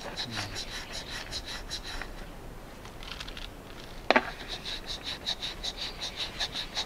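Quick, even rubbing strokes, about six a second in runs with short pauses, transferring a pattern onto a ceramic plate before overglaze painting. One sharp knock about four seconds in.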